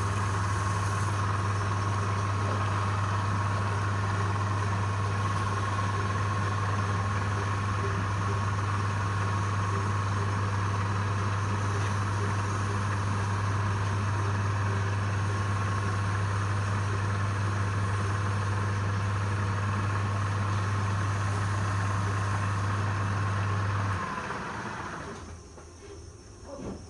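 Electric wood lathe running steadily with a low hum and a thin high whine, then switched off near the end and winding down.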